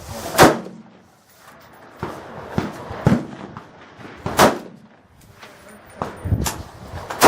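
Gunshots from firearms, fired singly at uneven intervals: three loud shots, about half a second in, a little past the middle and at the very end, with several fainter shots between them, each followed by a short echo.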